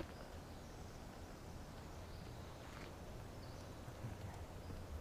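Quiet forest ambience: a faint, steady low rumble with a soft tick a little before three seconds in.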